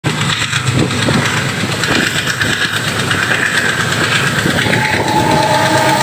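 Express passenger train running at speed, heard from an open coach door: wheels clattering over the rails under a steady rush of wind and running noise. About five seconds in, a steady horn tone begins and holds.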